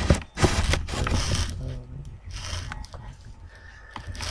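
Handling noise close to the microphone: a run of rustles, scrapes and sharp clicks as the camera is moved about.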